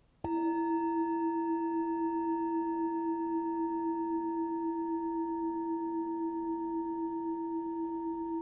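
A meditation bell struck once, a quarter second in, then ringing on with a clear, steady low tone and fainter higher overtones, slowly fading.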